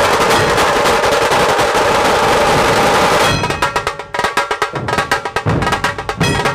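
A Maharashtrian dhol-tasha drum ensemble playing loudly: dhol barrel drums with tasha drums. For about the first three seconds it is a dense, unbroken drum roll. It then breaks into a beat of distinct, evenly spaced strokes.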